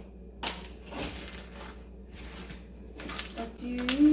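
A few short squishing and handling noises as slime is worked by hand, then a girl starts humming near the end.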